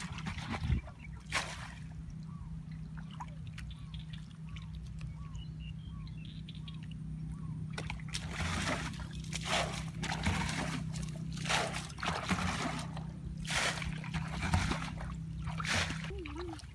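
Hands splashing and sloshing in shallow, muddy rice-field water while groping for fish, in a series of short splashes that come thick and fast in the second half.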